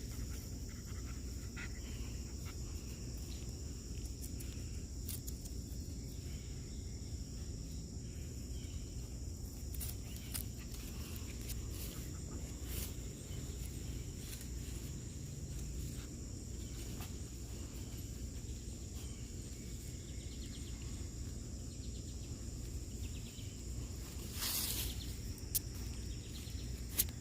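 Steady high-pitched chorus of insects, with a low rumble underneath, scattered small clicks, and a brief rustle near the end.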